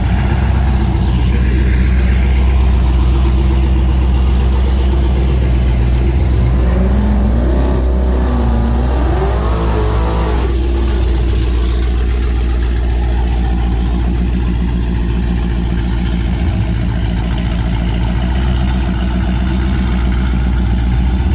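Jeep Grand Cherokee's engine idling with a deep, steady rumble as it rolls past at low speed. About seven seconds in, the revs climb and fall a few times over some four seconds, then settle back to idle.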